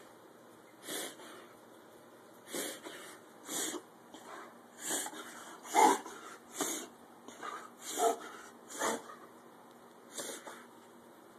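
A pit bull making an odd, repeated breathy noise: about a dozen short, noisy puffs at uneven gaps of roughly a second. The loudest, about six and eight seconds in, carry a brief squeaky tone.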